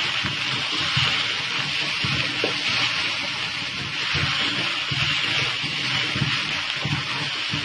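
Noodles and vegetables sizzling in a large karahi (wok) while being stirred, a steady frying hiss with irregular low scrapes and knocks of the spatula against the pan.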